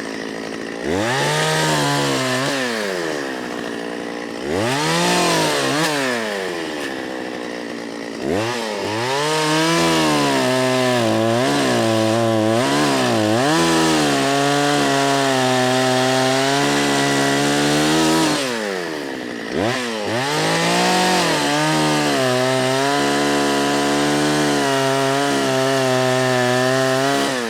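Gasoline chainsaw cutting through a log: the engine revs up four times, each time holding at high, steady revs under load while the chain cuts, and drops back briefly between cuts.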